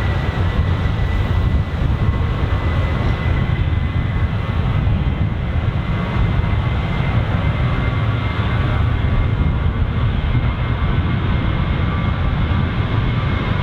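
A Boeing 737-800's CFM56-7B turbofan engines at takeoff thrust: a steady, loud jet roar with a thin high whine that rises slightly in pitch.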